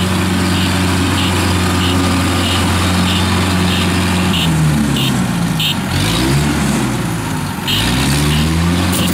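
Engines of a small tracked tractor and a Kubota combine harvester running steadily, then rising and falling in speed about halfway through as the tractor pulls the combine, which is stuck in soft mud, on a chain. A regular tick comes about twice a second.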